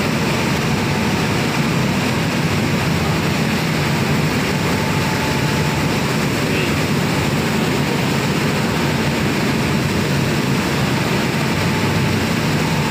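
Steady drone of factory machinery running, with a low hum and an even rushing noise that holds at one level throughout.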